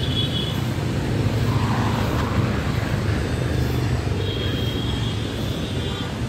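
Road traffic noise: a steady low rumble of vehicle engines and tyres, swelling briefly about two seconds in. A thin high steady tone sounds at the start and again from about four seconds in.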